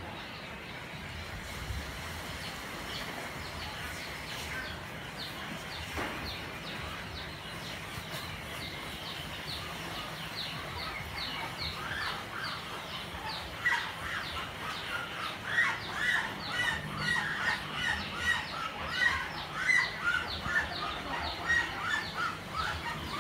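Small birds chirping in quick, short, falling notes, growing busier and louder from about halfway through.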